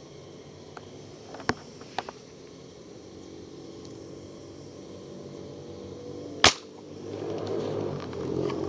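A single sharp shot from a fish-shooting gun with a line-tethered shaft, fired at fish in the water about six and a half seconds in, after two lighter clicks of handling around one and a half and two seconds in. A louder steady rushing noise comes up about a second after the shot.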